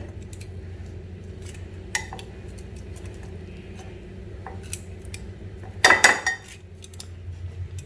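Light metal clinks and clicks of chicken pieces being set on a hot oven's wire grill rack, over a steady low hum, with one louder clatter about six seconds in.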